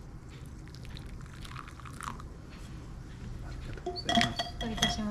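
Faint small clicks and rustles, then from about four seconds in a quick run of sharp clinks with a ringing tone, like dishes or utensils knocking together.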